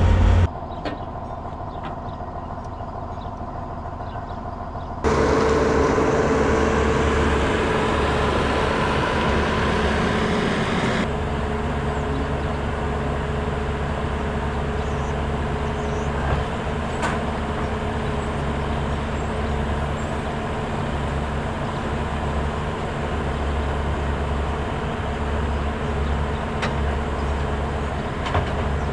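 Farm machinery engine running steadily, heard across several cut-together shots with sudden changes in level.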